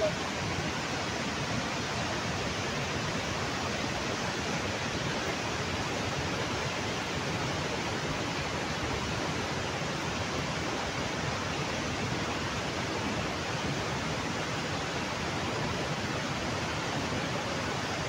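Steady rushing noise of a muddy river in full flood after heavy rain, the torrent's sound unbroken and even.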